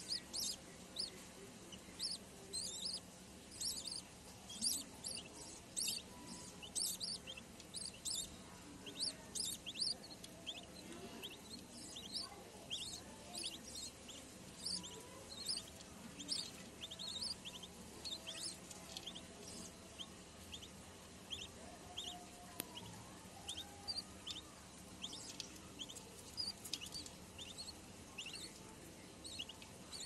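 Budgerigar chicks in the nest box cheeping to be fed: a steady run of short, high chirps, two or three a second, over a faint steady hum.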